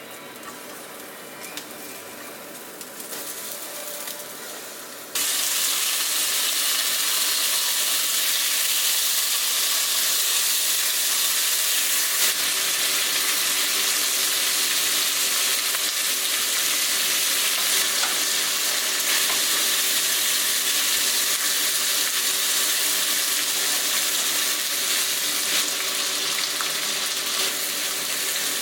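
Food frying in a pan: a loud, steady sizzle that starts abruptly about five seconds in, after a quieter stretch with a few small clicks.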